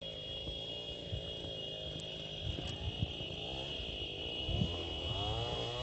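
An engine running, its pitch rising and falling more from about four seconds in, over a steady high-pitched buzz and a few low thumps.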